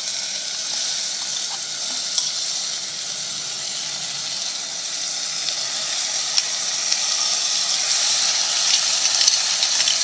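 Curd-marinated mutton pieces sizzling in hot oil with fried onions in a pressure cooker: a steady hiss with scattered spattering pops, growing a little louder toward the end.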